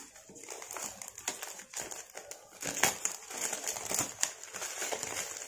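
Clear plastic bag holding small pebbles crinkling and rustling as it is handled and pulled out, with a few sharp clicks.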